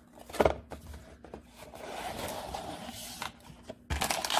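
Cardboard box opened by hand: a sharp knock about half a second in, then soft scraping of cardboard, and crinkling of the plastic bag inside starting near the end.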